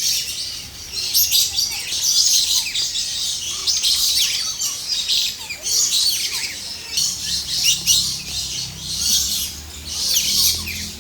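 A dense chorus of many small birds chirping and twittering together without a break, all high-pitched with quick overlapping notes.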